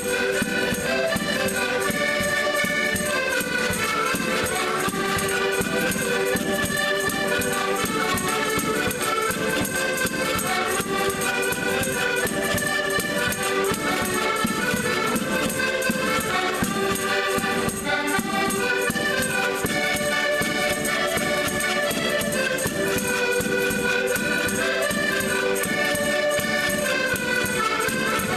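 A group of Portuguese concertinas (diatonic button accordions) playing a lively traditional folk tune together, with a bass drum keeping a steady beat.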